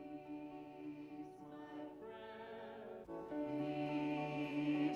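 Choir singing a slow hymn in long held notes, growing louder about three seconds in.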